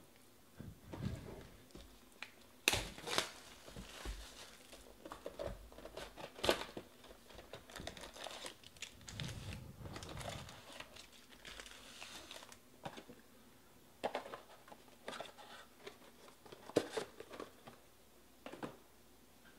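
Foil-wrapped Panini Prizm trading card packs being pulled out of cardboard hobby boxes and stacked on a table: irregular crinkling of the foil wrappers with scattered knocks and taps of packs and box.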